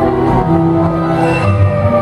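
Orchestral film-score music with held string notes over a low bass, played for the Hogwarts Castle projection show; the bass swells about a second and a half in.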